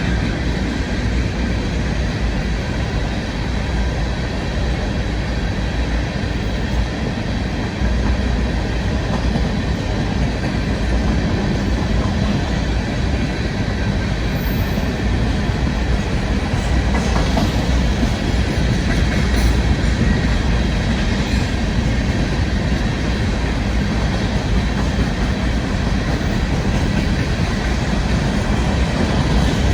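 Train rolling past on the track: a steady, loud rumble of wheels and cars on the rails.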